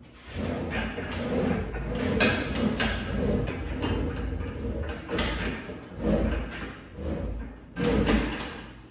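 Four-bearing roller trolley rolling along a Unistrut strut channel under the load of a hoisted ATV, a rumbling rattle with scattered knocks that swells and fades as it is pushed by hand.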